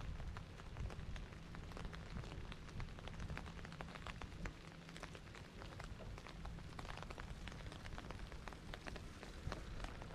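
Rain falling, with many separate drops ticking close by over a steady hiss and a low rumble.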